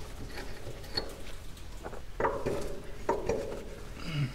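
Steel wheel-clamp hardware and a wrench on a Farmall 656 rear wheel center clinking and clanking as the clamps are worked loose, with a few separate metal knocks.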